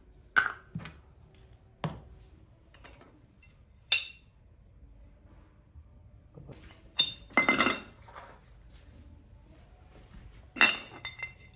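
Small metal parts and tools clinking and clattering as they are handled and set down, with about seven separate strikes, a few of them ringing briefly.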